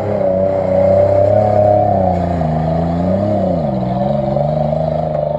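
Toyota 4Runner's engine revving hard under load as the lifted truck claws its way out of a mud pit, its pitch rising and falling, dipping about three seconds in and then climbing again.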